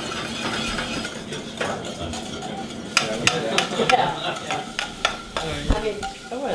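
Metal utensil stirring a red wine sauce in a saucepan as arrowroot thickens it. There is a steady hiss at first, then from about three seconds in quick clinks and scrapes against the pan.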